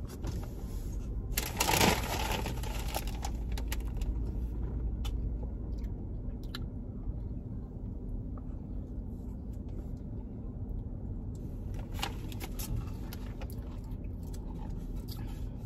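Steady low hum inside a car cabin, with a short scratchy rustle about two seconds in and scattered soft clicks and scrapes of a plastic spoon in a shake cup.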